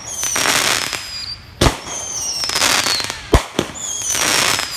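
Consumer fireworks going off: three high whistles, each falling in pitch for about a second, over steady hissing, with sharp pops about a second and a half in and twice more past the middle, the first of those two the loudest.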